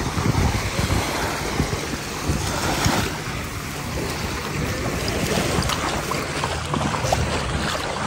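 Wind buffeting the microphone in uneven gusts, over the steady wash of sea waves on the shore.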